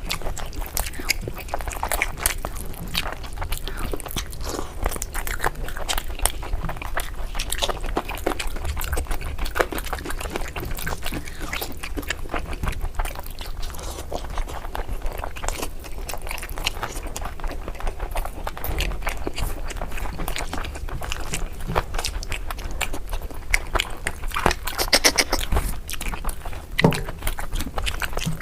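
Close-miked chewing and mouth sounds of a person eating curry, many small irregular clicks, with a run of sharper clicks near the end.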